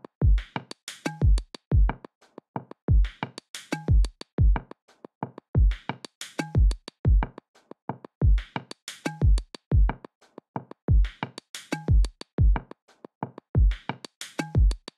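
Background music: an electronic drum-machine beat with deep kick drums and crisp hi-hat and snare hits, repeating in a steady pattern.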